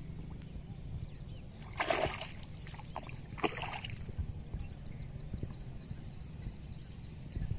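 Shallow muddy water sloshing and splashing as a cloth sack is dipped and worked through it, with two short, louder splashes about two seconds and three and a half seconds in.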